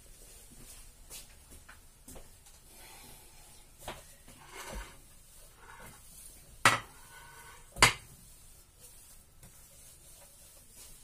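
Crockery being handled on a kitchen worktop: a few light knocks and a sponge wiping the counter, then two sharp clinks of plates set down about a second apart, the first with a short ring.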